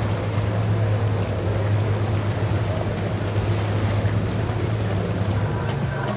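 Steady low drone of boat engines over a wash of water noise.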